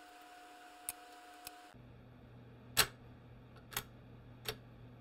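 A few sharp, separate metal clicks and taps as tools and parts are handled at the cast-iron transaxle case, the loudest about three seconds in. The steady background hum changes abruptly a little under two seconds in.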